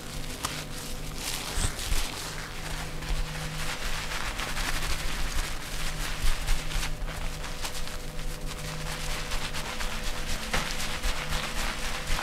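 Massage strokes: a dense, irregular run of quick slaps, taps and rubs of hands on skin, over a steady low hum.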